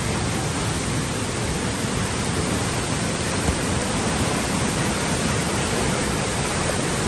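A river in flood, swollen by heavy rains, rushing steadily over rocks and rapids.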